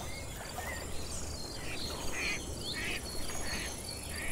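Insects chirping in a steady, evenly pulsing trill, with several short bird chirps, most of them in the second half.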